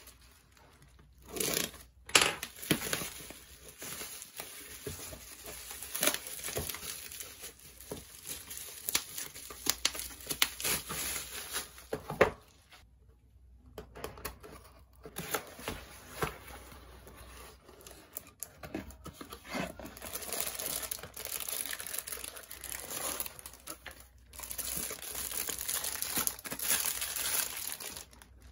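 A cardboard mailer box being unboxed by hand: packing tape slit and torn, cardboard handled and tapped, then shredded-paper filler and a plastic-wrapped item rustling and crinkling. The sound comes in irregular rustles and sharp clicks, with the loudest click about two seconds in and a short pause midway.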